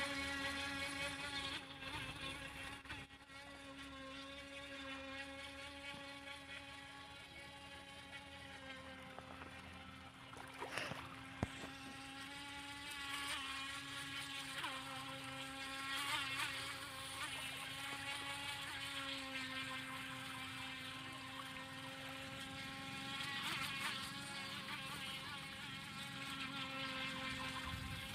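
Electric RC speedboat's motor running at speed, a high, thin whine with its pitch wavering slightly as the boat moves on the water. A single sharp tap sounds about eleven seconds in.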